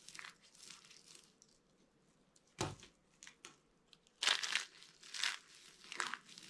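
Dry soap being crushed by hand: a few light crackles, one sharp crunch with a dull thud, then a run of loud crisp crunches in the second half.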